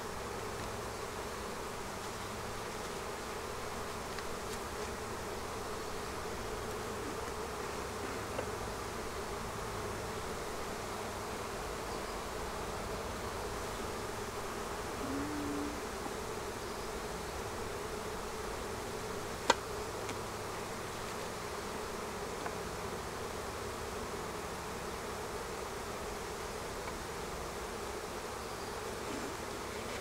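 Honeybee colony buzzing steadily from an opened hive, the bees boiling up over the frames, which the beekeeper puts down to too much smoke. A single sharp click sounds about two-thirds of the way through.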